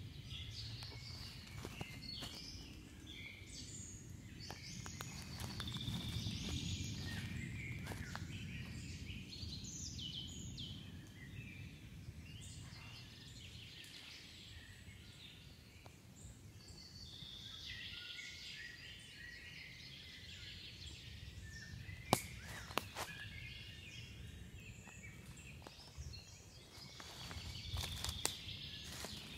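Woodland ambience: songbirds calling and singing over a steady low rumble. A few sharp snaps come about three-quarters of the way through.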